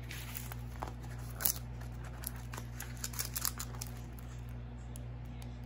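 Clear plastic film on a diamond painting canvas crinkling as the canvas is handled, with scattered light clicks and rustles, the sharpest about one and a half seconds in, over a steady low hum.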